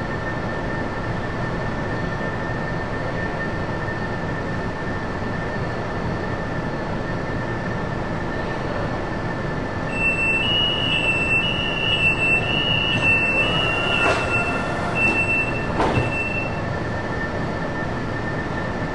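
A fully automated metro train stands at an underground platform with a steady hum and whine of running equipment. About halfway in, a high-pitched interrupted beeping starts and sounds for about six seconds: the door-closing warning before departure. Two short knocks come near the end of the beeping, as the doors shut.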